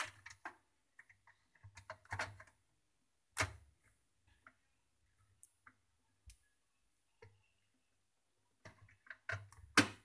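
Scattered light clicks and knocks from handling at the rim and inside of a top-load washing machine's drum, with a sharper knock about three and a half seconds in and a quick cluster of clicks near the end.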